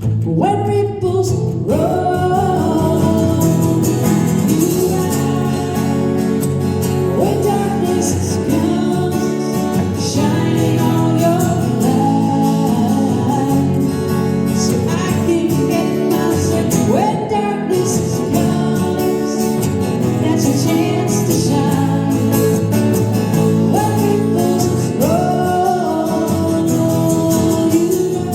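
Live acoustic song performance: singing voices over instrumental accompaniment, continuing steadily.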